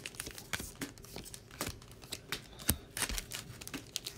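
Foil booster-pack wrappers crinkling and being torn open by hand, with playing cards being handled: a scatter of short crackles and clicks, the sharpest a little under three seconds in.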